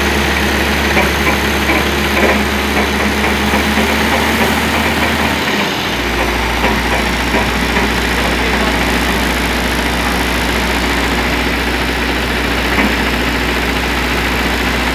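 Heavy truck engine running steadily, powering the Meiller hook-lift hydraulics as they tip a steel roll-off container. The low drone shifts about six seconds in.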